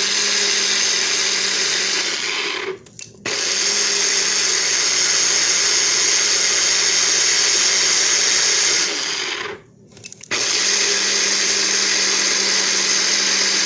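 Countertop blender running on Caesar dressing of egg yolks, garlic, mustard, lemon juice and olive oil, a loud steady motor whir. It stops briefly about three seconds in and again about ten seconds in, starting up again each time.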